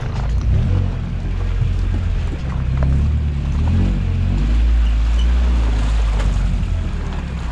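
Toyota truck's engine running at low revs while driving a rough off-road trail, its pitch rising and falling a little, with a few scattered knocks and rattles from the truck.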